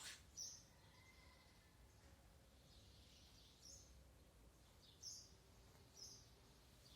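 Near-quiet background with a handful of brief, high chirps from small birds, spaced a second or more apart. The tail of a short rasping burst comes right at the start.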